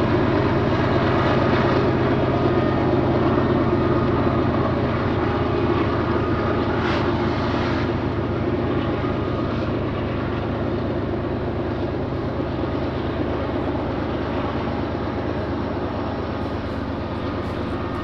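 Diesel freight locomotives working hard up a steep grade: a steady, deep engine drone that slowly fades.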